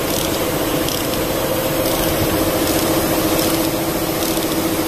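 A machine running steadily in the background, with a few faint ticks from a ratchet and socket on a long extension turning a diesel engine's fuel injector hold-down bolt.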